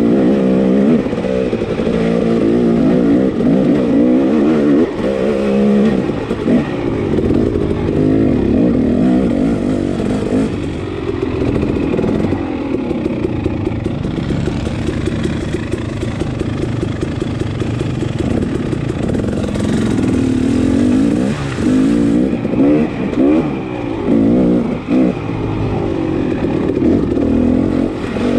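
KTM dirt bike engine running under load, its pitch rising and falling over and over with the throttle as the bike climbs a rocky trail.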